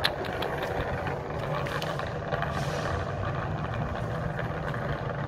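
Steady low rumble of a running vehicle engine, with a few faint clicks in the first couple of seconds.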